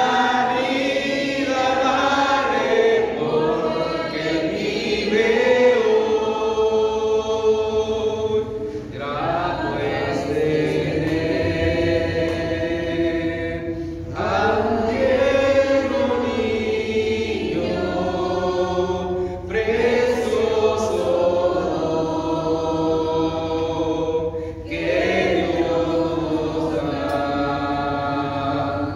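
A church congregation singing a slow hymn in unison without instruments, in long held phrases of about five seconds with short breaks between them.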